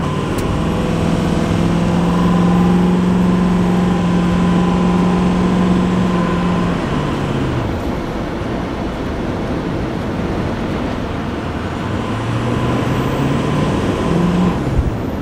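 Diesel pickup truck engine running under way, its note holding steady for several seconds, dropping about seven seconds in, then climbing again near the end.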